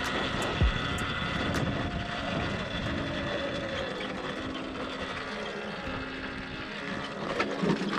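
Multirotor camera drone's propellers buzzing steadily, their pitch shifting in small steps, with a few light clicks and a thump near the start.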